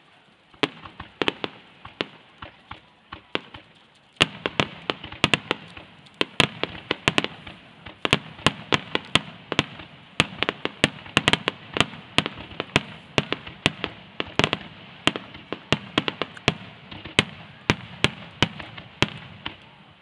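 Aerial firework shells bursting in a rapid-fire starmine barrage. The bangs are scattered for the first few seconds, then from about four seconds in they come several a second over a steady rush of noise.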